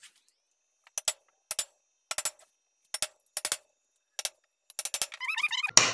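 Steel parts of a band saw bearing housing and shaft being handled on a workbench: a series of sharp metallic clicks and taps, many in pairs, ending with a louder knock.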